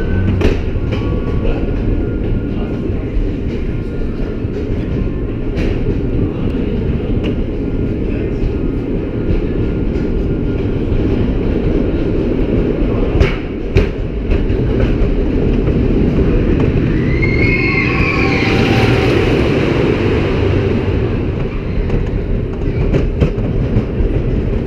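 Wodan Timburcoaster, a GCI wooden roller coaster: its train rolls along the wooden track with a steady rumble and occasional sharp clacks. A brief wavering squeal comes about three-quarters of the way through.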